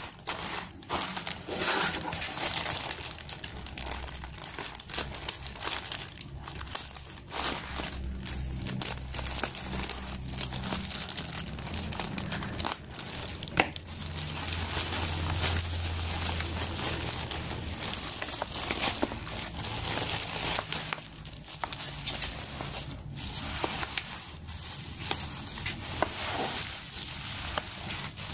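Black plastic mailer bag lined with bubble wrap, crinkling and rustling continuously as hands handle it and open it. There is one sharp click about halfway through.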